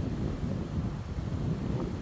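Strong wind buffeting the microphone: a steady, gusting low rumble with no shot or gong strike.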